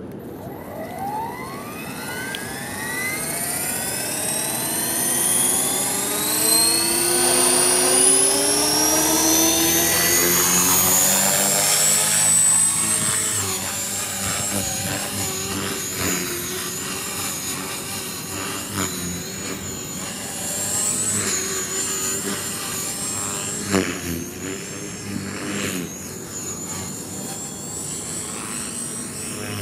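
Radio-controlled model helicopter spooling up. Its whine rises steadily in pitch for about twelve seconds as the rotor comes up to speed, then holds at a high, slightly wavering pitch while it flies.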